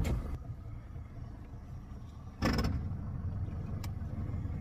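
A boat engine running with a steady low rumble. A brief loud knock or buffet comes about two and a half seconds in.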